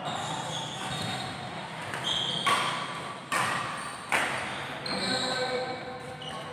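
Badminton rackets striking a shuttlecock in a rally: three sharp hits, a little under a second apart, echoing in a large hall.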